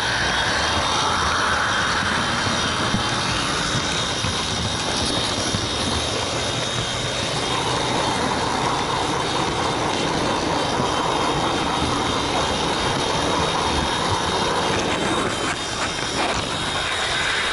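Märklin model train running along the track, heard from the wagon carrying the camera: a steady whirring rumble of wheels on rails with a faint high motor whine.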